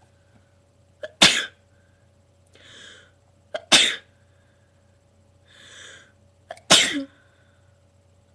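A person sneezing three times in a row, about two and a half seconds apart, each sneeze loud and abrupt, with a breathy inhale before the second and third.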